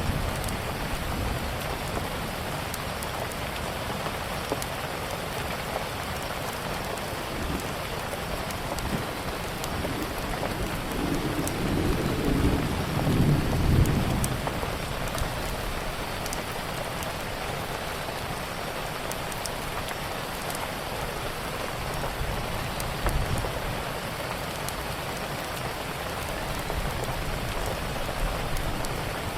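Steady rain falling, with a low rumble of thunder swelling around the middle. Scattered small crackles, as from a fireplace, sit over the rain.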